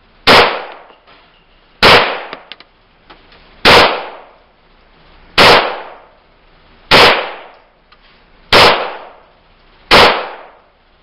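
Ruger Mark IV Hunter .22 LR semi-automatic pistol firing seven shots at a steady pace, about one every second and a half, each crack trailing off in a short echo.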